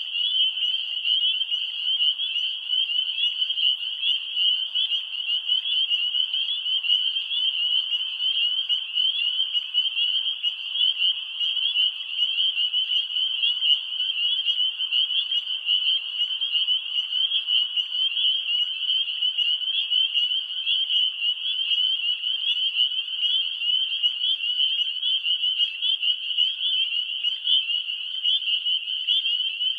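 A dense, steady chorus of many frogs calling together, a high-pitched peeping that goes on without a break.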